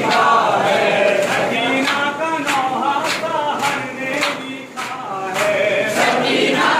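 A group of men chanting a Muharram noha in unison, with the sharp slaps of rhythmic chest-beating (matam) landing about twice a second.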